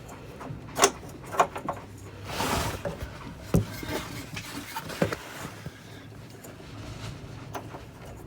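Hand work on a boat's through-hull fitting, most likely the paddle-wheel speed sensor being pushed back into its housing and secured. It makes several sharp knocks and clicks, with a short scraping rush about two seconds in.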